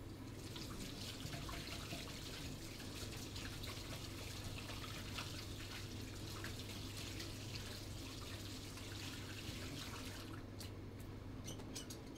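Water running from a wall-mounted tap into a ceramic vessel sink, splashing over hands being rinsed under it. The flow stops about ten seconds in, followed by a few short ticks near the end.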